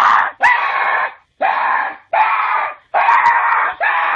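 A teenage boy screaming in fright over and over, about seven loud screams in a row, each lasting under a second.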